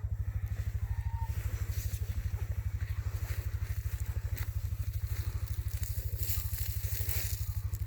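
An engine idling with a steady, even low throb, and a burst of crackling and rustling near the end.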